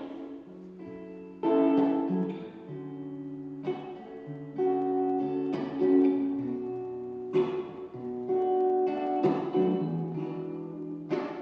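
Acoustic guitar strumming chords, a new chord struck every second or two, playing the instrumental introduction to a song.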